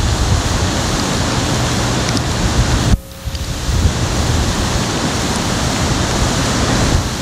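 Wind rushing and buffeting the camcorder's microphone in a steady low rumble. The sound drops out abruptly about three seconds in and comes back within a second, as at a cut in the tape.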